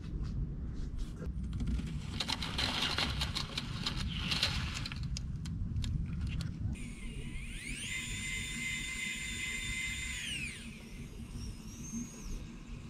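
A small electric motor on an RC scale construction model winds up to a steady high whine, holds it for a couple of seconds, then winds down. Before that comes a stretch of rapid clicking and rattling, over a low outdoor rumble.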